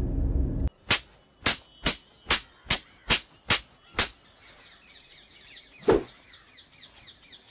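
A quick run of eight sharp bangs, about two a second, then birds chirping over quiet outdoor air, with one more single thud about six seconds in.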